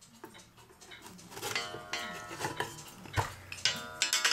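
Back panel of a wooden cuckoo clock case being lifted off, with knocks of wood on wood and a heavy knock about three seconds in. The coiled wire gong mounted on the panel rings with a metallic tone as it is jostled, loudest near the end.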